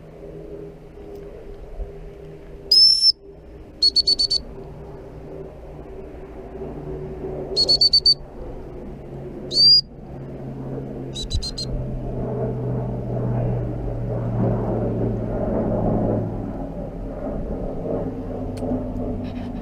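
Gundog whistle blown to handle a Labrador on a retrieve: a single long blast about three seconds in, then quick trills of short pips, another short rising blast near ten seconds and a last burst of pips. Single long blasts are the usual stop signal and rapid pips the usual recall. A steady low rumble runs underneath.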